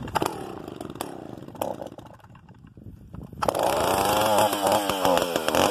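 Stihl 041AV two-stroke chainsaw running: its revs die away to a low, uneven idle, then about three and a half seconds in the throttle opens and it revs up sharply and keeps running at high revs, the pitch wavering.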